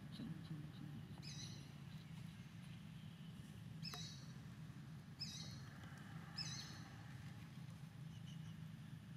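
Four faint, short, high chirps from an animal, the last three about a second apart, over a steady low hum.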